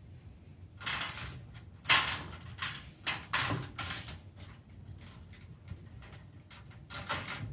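Hand-held wire strippers snipping through the thin lamp-holder wires of a fluorescent light fixture, with the wires rustling and scraping against the sheet-metal housing. There are several short snips and rustles, and a few sharp clicks near the end.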